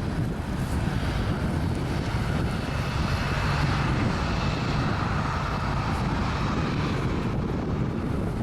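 Jet engine noise from an Airbus A330-300 twin-engine airliner on its landing approach: a steady rush that swells a little in the middle.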